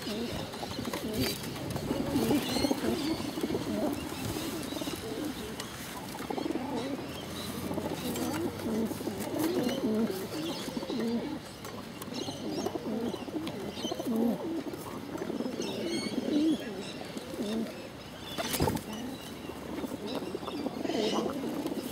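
Rock pigeons cooing close by: a continuous run of low, wavering coos, with faint high chirps scattered through and a single sharp knock near the end.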